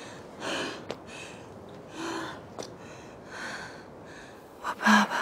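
A tearful young woman's sobbing breaths: four sharp, gasping intakes of breath about one and a half seconds apart. The last, near the end, is the loudest and has a short voiced sob in it.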